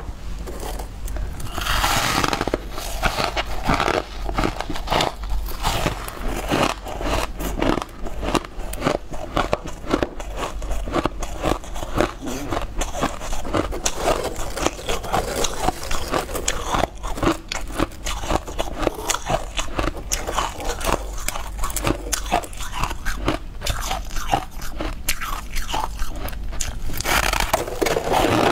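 Purple granular snowflake crisp crunching as it is broken apart by hand, bitten and chewed close to a clip-on microphone: a dense run of sharp, crackly crunches.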